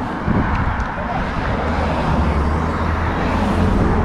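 Road traffic going by on the highway beside a roadside stop: a steady low rumble with a vehicle's tyre hiss swelling as it passes near the end.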